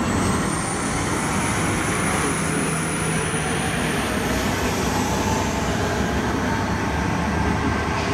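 Steady engine and road rumble of a tour bus heard from inside the bus, with a faint high whine that rises and fades over the first few seconds.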